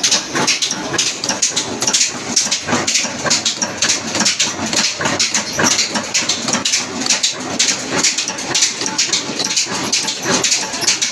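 Old Pakistani-made stationary 'desi' diesel engine running steadily, a rapid even clatter of knocks over a noisy hiss.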